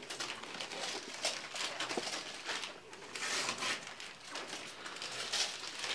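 Gift wrapping paper being torn and crumpled by hand as presents are unwrapped, a string of irregular rustles and crackles.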